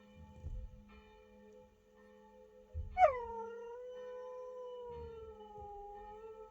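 A dog howling along to ringing church bells: one long howl begins about halfway through, drops sharply in pitch at its start, then holds and slides slowly lower for about three seconds. The bells' steady ringing tones sound the whole time.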